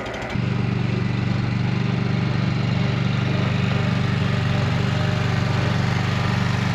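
Small engine of a livestock feed cart running steadily, getting louder about half a second in and then holding an even speed.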